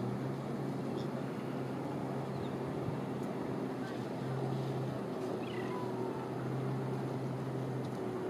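A watercraft engine running steadily as a low hum that swells and fades, over a steady hiss. A few faint high chirps come in around the middle.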